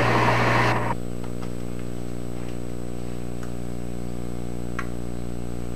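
Metal lathe running under power while a tap cuts threads in the workpiece, a loud, noisy machining sound over a steady hum that cuts off suddenly about a second in. After that comes a quieter steady hum with a few faint ticks.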